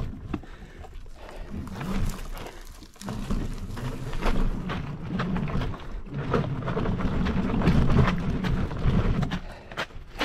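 Mountain bike rolling over a rough dirt trail, with irregular rattles and knocks from the bike, under uneven swells of heavy breathing from the rider.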